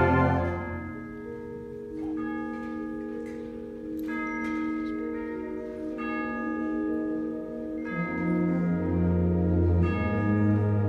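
Concert band playing: a loud full chord dies away, then a quiet passage of held low chords with bell-like tuned percussion strikes about every two seconds. The full band grows louder again about eight seconds in.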